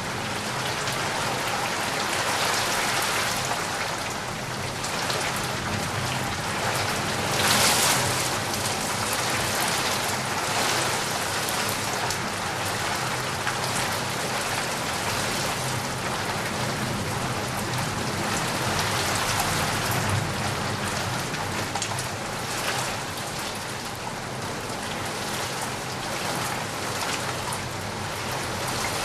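Steady rain falling outside a window, the drops pattering and knocking on surfaces, with one brief louder swell about seven seconds in.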